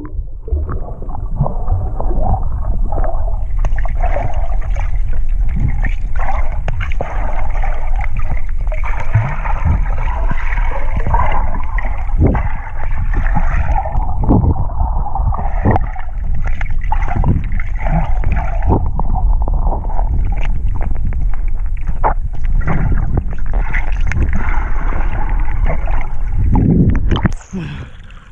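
Muffled underwater noise picked up by a camera submerged in a river: a steady rumble and hiss of moving water with frequent knocks and bumps from the swimmer's strokes. About a second before the end the sound drops off as the camera comes up out of the water.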